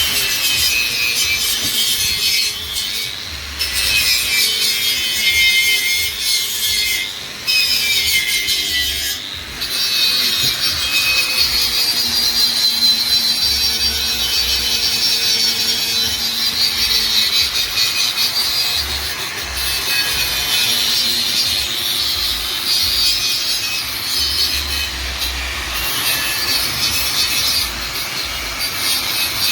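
Angle grinder working over fresh welds on a steel exhaust pipe: a steady, high grinding hiss with the motor's hum underneath, easing off briefly a few times in the first ten seconds.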